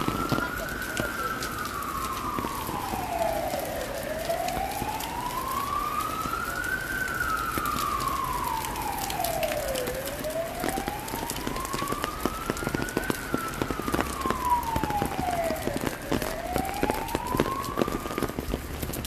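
Emergency siren wailing slowly, its pitch rising and falling about every six seconds through three full cycles, over a steady hiss and scattered ticks.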